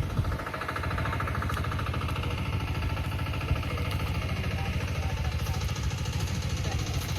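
A small engine running steadily at constant speed, the kind that drives an irrigation water pump while the seedlings are being watered.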